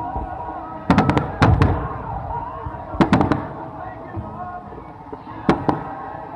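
Aerial fireworks exploding in clusters of sharp bangs: a rapid volley about a second in, another at about three seconds, and two more near the end, with music playing underneath.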